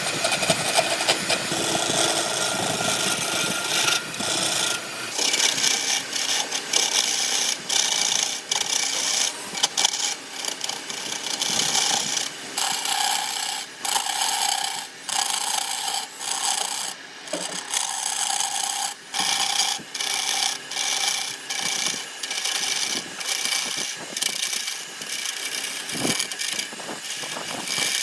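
A tool rasping against wood spinning on a wood lathe. From about ten seconds in it comes in repeated passes with brief breaks about a second apart.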